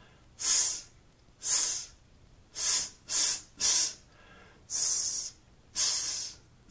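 A man's voiceless /s/ sound produced as a therapy drill: two longer hisses, then three short quick ones, then two longer ones again, each a sharp high hiss with brief pauses between. The drill pattern is two slow /s/ productions for accuracy followed by three quicker ones for speed.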